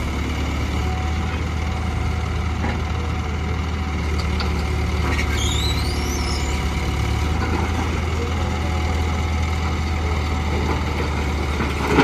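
Diesel engine of a Hydra mobile crane idling steadily.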